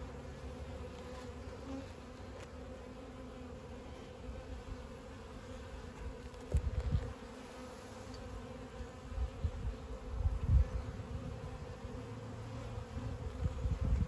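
Honey bees buzzing steadily in a dense, even hum from a colony opened for inspection, with a frame of bees held up over the hive. A few low rumbling bumps come through about halfway and again about ten seconds in.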